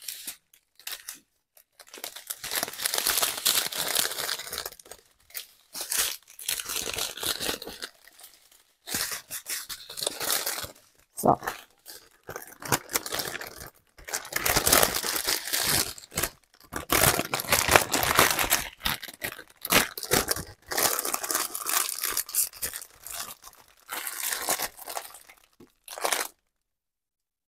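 Thin plastic bags and plastic film crinkling as they are handled and pressed flat, in irregular bursts with short pauses. The bags hold diamond-painting rhinestone drills. The crinkling stops about a second before the end.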